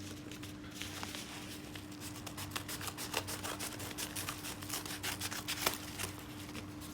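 Scissors cutting open a plastic shipping package: a run of short sharp snips and clicks with rustling, busiest in the middle, over a steady low hum.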